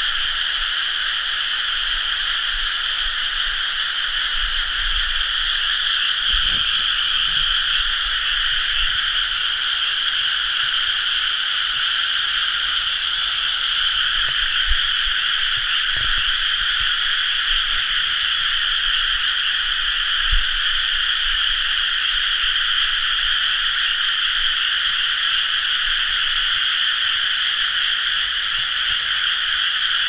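A dense chorus of many frogs calling at once from rice paddies, their overlapping calls merging into a steady, unbroken high-pitched drone.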